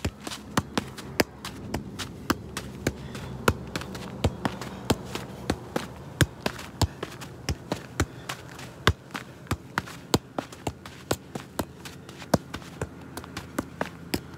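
Size-four football being juggled on the feet: a steady run of short taps, two to three a second, each one a touch of the ball off the shoe.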